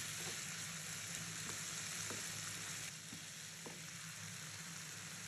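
Sliced onions and capsicum sizzling in a hot non-stick pan as they are stir-fried with a wooden spatula, with a few soft knocks. The sizzle eases slightly about three seconds in.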